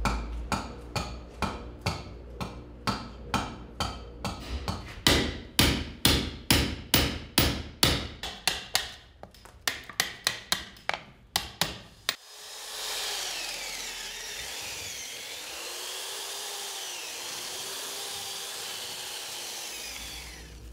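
Chisel hammered into a block of athel wood to hollow out an incense censer: sharp blows, about two to three a second. About twelve seconds in, this gives way to an electric drill boring into the wood, a steady whir whose pitch wavers.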